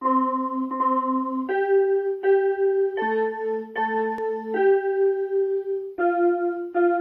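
Yamaha portable electronic keyboard playing a slow single-line melody: each note is struck twice, about three-quarters of a second apart, before moving to the next. The tune climbs and then steps back down.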